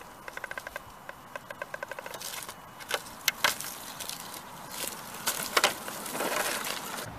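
Axial SCX10 RC rock crawler working over rocks: a quick run of clicks, then several sharp knocks and a short rustle near the end.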